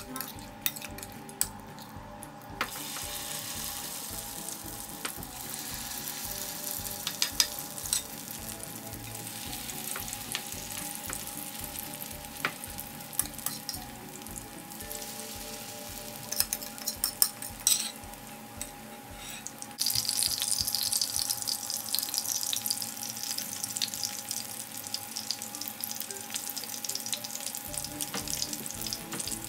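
Potato hash brown patties shallow-frying in oil in a frying pan: a steady sizzle with scattered pops and crackles, growing louder and denser about twenty seconds in.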